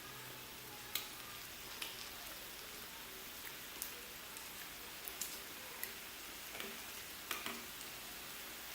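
Thin-sliced lamb sizzling on a grill, a steady hiss with about ten sharp clicks and pops scattered through it.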